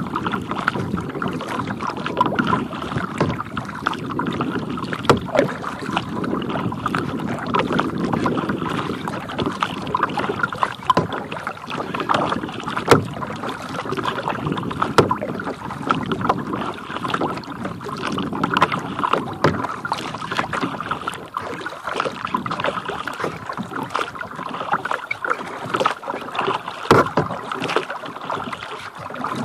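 Water splashing and lapping against a kayak's hull as it moves across a lake, steady throughout, with many small clicks and knocks.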